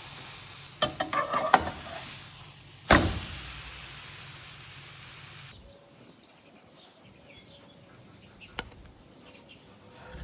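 Egg omelette and flatbread sizzling in butter in a frying pan, with spatula clicks and scrapes as it is folded and turned, and a sharp knock about three seconds in. The sizzling cuts off abruptly past the halfway point, leaving only a few faint clicks.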